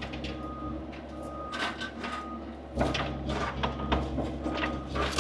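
Skid steer engine running under load as the machine drives to climb out of a swampy rut, rising in level about three seconds in. Repeated clanks and knocks, and a faint high beep that comes and goes.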